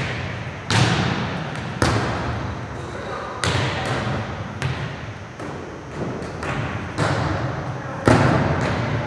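Volleyballs being hit and landing during a serve-receive and passing drill: about half a dozen sharp smacks spread over the few seconds, each echoing through the large gym.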